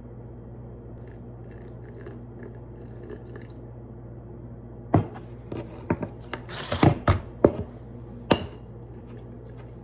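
Several sharp clinks and knocks of a utensil against a glass jar, starting about halfway through and loudest about two-thirds of the way in, over a steady low electrical hum.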